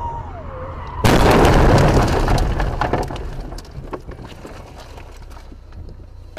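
A car collision heard from inside the car: a sudden loud crash about a second in, followed by about two seconds of crunching metal and clattering debris that fade away.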